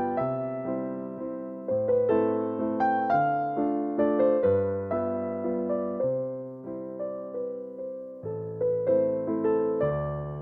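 Background music: a gentle electric piano playing slow chords with a melody on top, each note struck and fading away.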